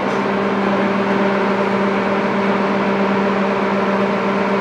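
LeBlond Regal heavy-duty engine lathe running at 544 RPM: a steady mechanical hum with a held tone and overtones, the machine running smoothly at speed.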